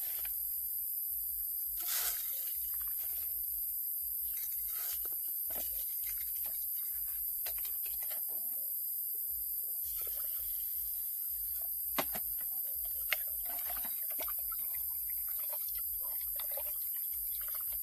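Uncooked rice being scooped from a plastic bag into a metal camp mug: bag rustling and grains pattering against metal, with two sharp metallic clinks about twelve and thirteen seconds in. A steady high-pitched hiss runs underneath.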